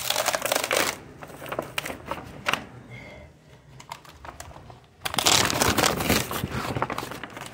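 Large sheets of painted paper, stuck together with acrylic paint, being handled and pulled apart, crinkling and rustling. There is a loud burst in the first second, scattered smaller rustles, and a longer loud stretch over the last two and a half seconds.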